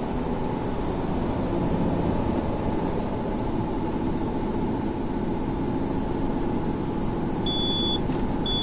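Car cruising at highway speed on an expressway, with steady tyre and engine noise heard from inside the cabin. Near the end a high electronic beep starts to sound about once a second, each beep lasting about half a second.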